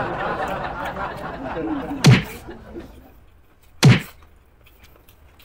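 Loud close-up chewing that fades after about two seconds, then two sharp thumps about two seconds apart.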